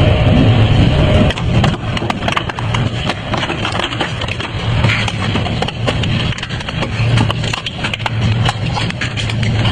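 Double-shaft shredder running with a steady low hum as its hooked cutter discs grab a plastic safety helmet and crush it. From about a second in come dense, irregular cracking and snapping of the plastic shell.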